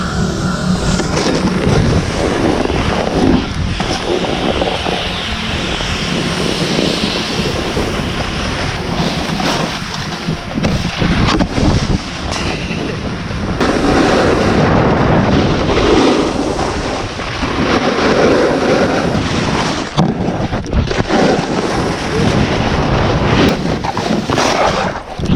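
Wind buffeting a GoPro's microphone during a downhill snowboard run: a loud, continuous rushing that swells and eases as the rider picks up speed.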